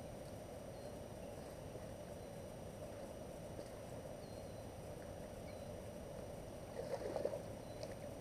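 Faint, steady outdoor background by a river, with a few faint short chirps and a brief louder burst of noise about seven seconds in.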